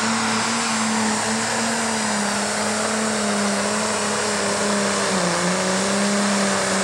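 Pro Stock pulling tractor's turbocharged diesel engine running flat out under load while dragging the weight sled: a loud, steady high-rpm drone whose pitch sags slightly about five seconds in.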